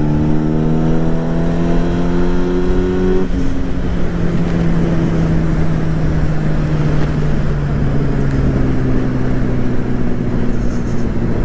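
Motorcycle engine pulling up in revs for about three seconds, then dropping sharply at an upshift and running on at a steadier pitch, with wind rushing over the microphone.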